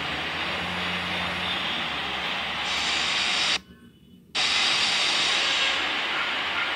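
Steady rushing hiss of background noise. It cuts out almost completely for under a second about halfway through, then resumes.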